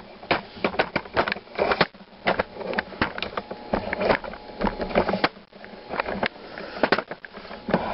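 Irregular clicks, knocks and light rattles, several a second: a handheld camera being carried about while small parts and objects are moved and set down.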